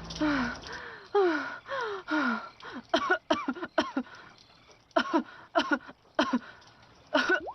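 A woman's voice gasping for breath, each gasp falling in pitch, then breaking into a string of short, spaced-out coughs: a cartoon character's exhausted, pained breathing.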